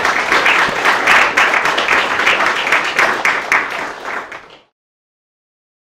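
Audience applauding, a dense patter of many hands clapping that cuts off suddenly about four and a half seconds in.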